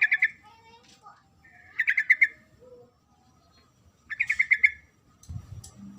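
Female yellow-vented bulbul (trucuk) calling: three bursts of rapid chattering notes about two seconds apart, with softer, lower notes between them. A low rumbling noise comes in near the end.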